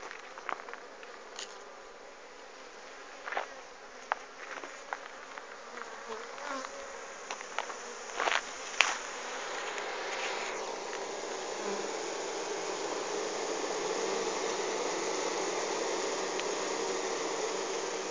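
Honeybee swarm buzzing around a hive as it moves into the box, the buzz growing louder and steadier about halfway through. A few short clicks sound in the first half.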